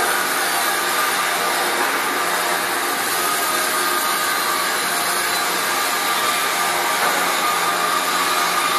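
Kemppi FastMig pulsed MIG welding arc burning steadily, a continuous even hiss with no breaks.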